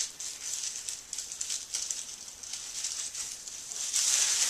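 Tissue paper wrapped around a wine bottle rustling and crinkling as the ribbon is untied and the paper is worked open. It grows louder and denser from about four seconds in.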